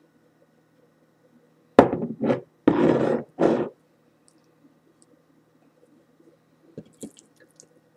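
Handling noise while oiling fish fillets on a plate: a sharp knock about two seconds in, a lighter knock just after, then about a second of dull rubbing noise, with a few faint clicks near the end.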